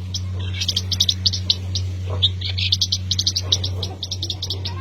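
Small birds chirping in quick runs of short, high notes, over a steady low hum.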